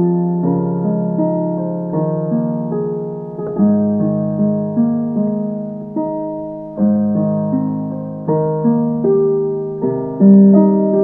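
Background piano music: a gentle piano tune with notes and chords struck about once a second, each left to ring and fade.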